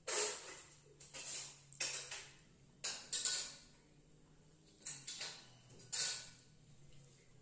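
Close-up eating and drinking: a series of short mouth sounds of chewing bread and sipping milk from a glass, about one a second.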